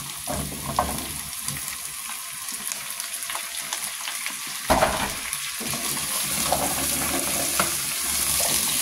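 Potatoes frying in hot oil in a pot of stew: a steady sizzle with small scraping clicks of stirring and one sharp knock about halfway through.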